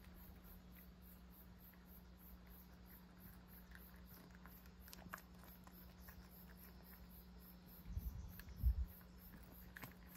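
Cat chewing dried sardines (niboshi): faint, scattered small crunching clicks as the hard little fish break between its teeth. Two soft low thumps about eight seconds in, over a steady low hum.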